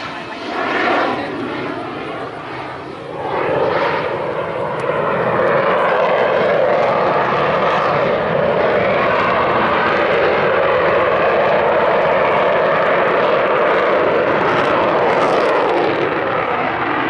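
F-16 fighter jet's engine noise during a low demonstration flight: a loud, continuous jet roar that swells about three seconds in and then holds steady.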